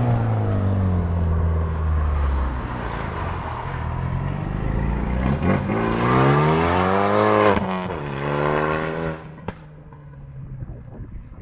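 Renault Mégane 3 RS's turbocharged 2.0-litre four-cylinder engine breathing through a decat, full straight-through exhaust: the engine note falls in pitch, then climbs hard under acceleration and drops sharply as if at a gear change. About nine seconds in it becomes much quieter.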